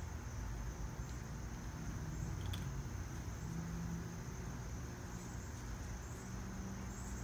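Steady high-pitched chirring of insects, swelling a little every second or so, over a low background rumble.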